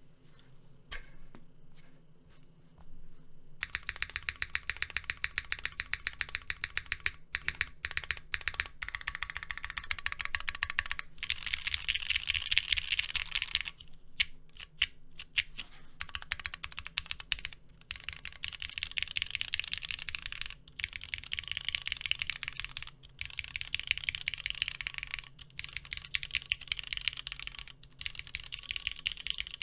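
Typing on a Cannonkeys Bakeneko60 mechanical keyboard with a carbon-fibre half plate, no foam, linear switches and GMK keycaps. A few scattered keystrokes come first; then, about three and a half seconds in, fast continuous typing begins, broken by brief pauses every few seconds.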